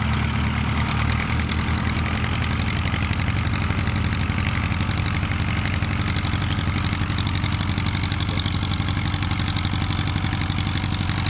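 Light aircraft's piston engine idling steadily at low rpm.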